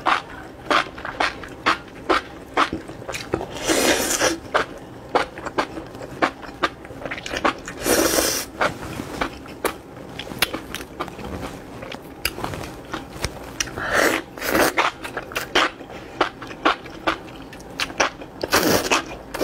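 Close-miked eating of extra-spicy enoki mushrooms in chili-oil broth: a steady run of short, wet mouth clicks from chewing. Four longer slurps of the mushroom strands come at intervals through it.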